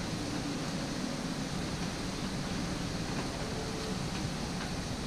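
Steady outdoor background noise: an even hiss, like wind or distant water, with no distinct event standing out.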